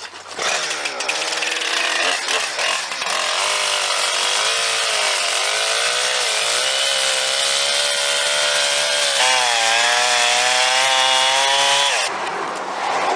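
Chainsaw cutting a small knob off the trunk of a pepperwood (California bay laurel) tree, its engine pitch wavering up and down under load, then stopping suddenly near the end.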